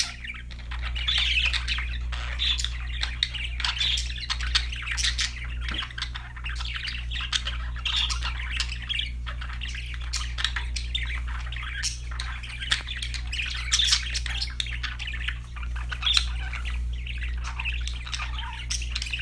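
Several pet budgerigars chattering, with quick chirps and squawks overlapping without a break, over a steady low hum.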